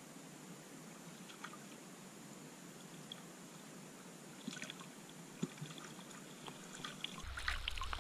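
Faint water sounds heard from under the surface of a lake, with a few small ticks and splashes. Near the end it switches to louder splashing and dripping as a landing net is lifted out of the water.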